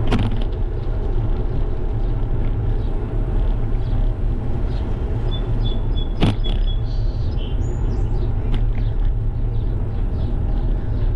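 Steady low rumble of wind and road noise on a GoPro HERO 12 carried on a moving bicycle, with a sharp click right at the start and a louder one about six seconds in.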